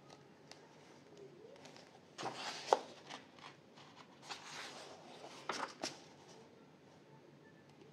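Pages of a paperback coloring book being turned by hand. The paper rustles and swishes in a few short bursts, with a sharp snap of paper about two and a half seconds in.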